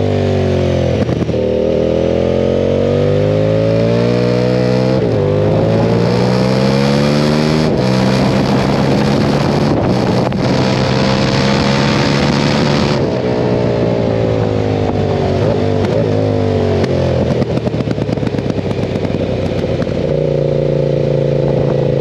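KTM 990 Super Duke's V-twin engine under hard acceleration, the revs climbing and dropping back at each of three upshifts, then holding high before falling through several downshifts with short rises of revs between them, and settling to a steady pull near the end.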